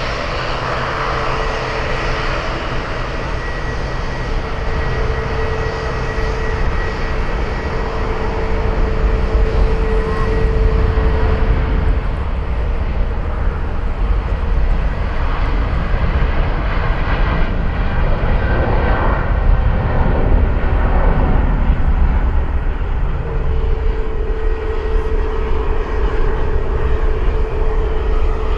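Jet engines of a Boeing 777-200ER airliner at takeoff power during the takeoff roll: a steady engine noise with a held whine, growing louder about nine seconds in.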